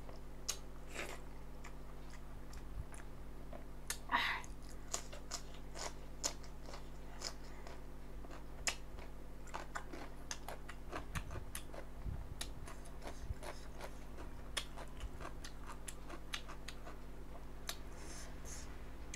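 A person chewing and biting food close to the microphone: irregular small wet clicks and smacks, with a short louder one about four seconds in.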